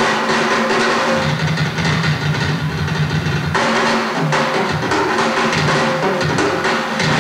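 Rock drum kit played live in a drum solo: dense rolls and bass drum hits, with a sustained low note ringing underneath.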